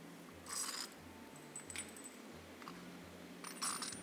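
Steel parts of a screw-type bearing puller and the old wheel bearing clinking against each other as they are handled and taken apart. There are two short rattling clinks, about half a second in and near the end, with a few lighter clicks between.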